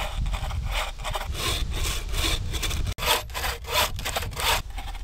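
Hand saw cutting through a log of firewood in steady back-and-forth strokes, about three a second. After a brief break about halfway, the strokes come slightly quicker.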